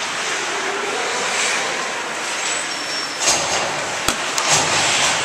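Ice hockey rink sound: a steady wash of noise from skates on the ice and the arena, with a louder clatter a little past three seconds in and a sharp knock about a second later from a stick or puck striking.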